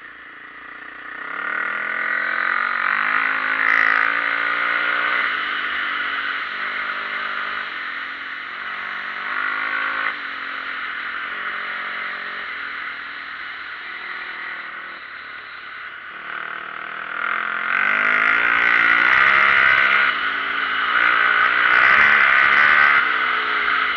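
Dirt bike engine running under the rider, accelerating through the gears: its pitch climbs and drops back at each shift, with a louder stretch of hard acceleration near the end.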